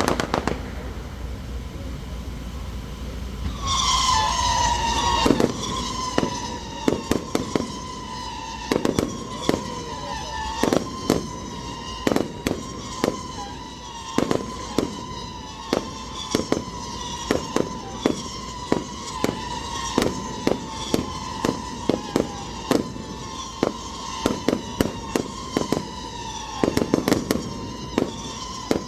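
Aerial fireworks display: a loud burst, then a long run of sharp bangs and crackles as shells break overhead, often several in quick succession. From about four seconds in, a steady, slightly wavering high whistle-like tone runs under the bangs.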